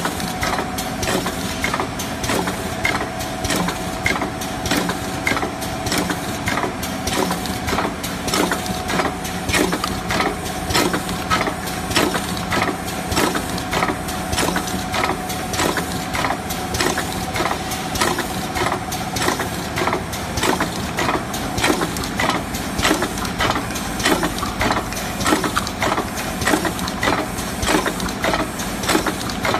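BAP Model 3000 rotary K-cup filling and sealing machine running, its turntable and stations clacking in a steady repeating cycle over a constant hum.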